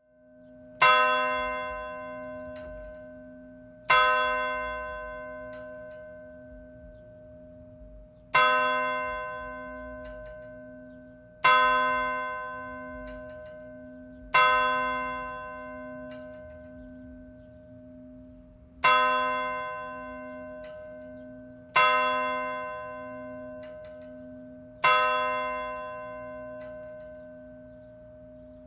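A single church bell tolling: eight slow strokes, spaced about three to four and a half seconds apart, each ringing out and fading slowly, with a low wavering hum lingering beneath.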